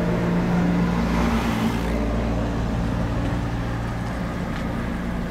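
An engine running steadily, a low hum that holds one pitch and is a little louder in the first two seconds.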